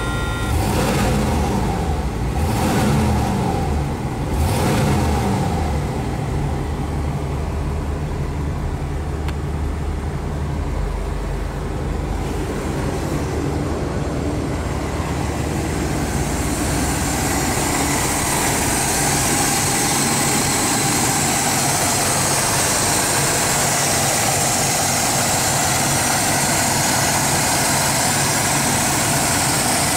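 The 1977 Pontiac Grand Prix's 301 cubic-inch V8 is revved up and down about three times, then settles into a steady idle. From about halfway it is heard up close at the open engine bay, with more fan and belt hiss.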